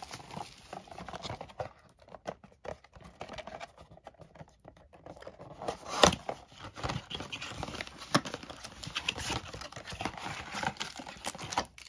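A cardboard trading-card box being opened by hand, with the rustle and crinkle of paper, cardboard and foil wrappers in many short crackles. There is one sharp, loud tear or snap about six seconds in, as the box flap is pulled open.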